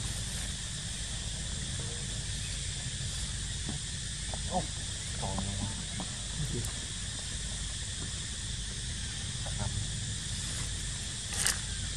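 A steady high background hiss, with a few short, faint calls from long-tailed macaques near the middle and again later, and one sharp click near the end.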